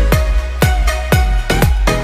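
Upbeat electronic background music with a steady kick drum about twice a second.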